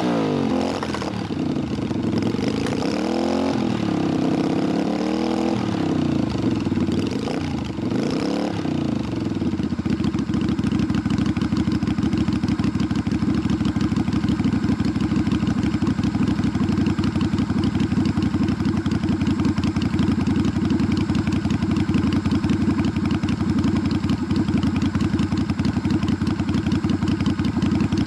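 Yamaha Virago 250's air-cooled V-twin running through slash-cut drag pipes, revved up and back down several times, then settling into a steady idle about ten seconds in.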